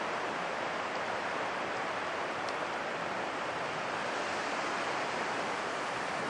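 Steady hiss of wind blowing through the surrounding bushes and grass, even and unbroken, with no calls or footsteps.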